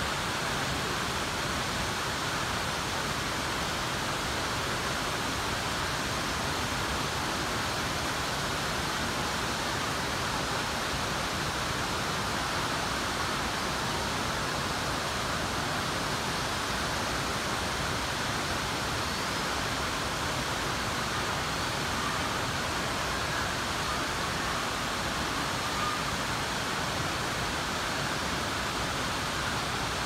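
Waterfall pouring down a rocky gorge: a steady, even rush of falling water.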